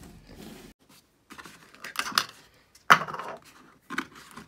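Cardboard thermostat box being slit open and handled: a series of short scraping and rustling bursts from the card lid and insert, the loudest about three seconds in.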